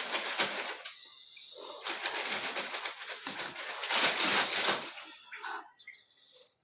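Noisy, wet slurping and eating of noodles in several surges, the loudest about four seconds in, dying away near the end.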